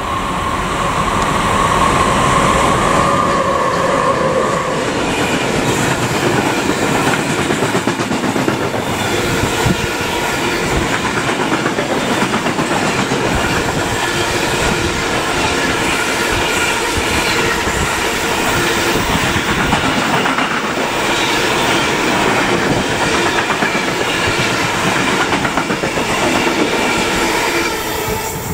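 Electric-hauled freight train of open wagons passing close by, wheels clattering over the rail joints. A steady high whine sounds for the first few seconds, and faint high squealing rides over the clatter. The sound drops away near the end as the last wagon goes by.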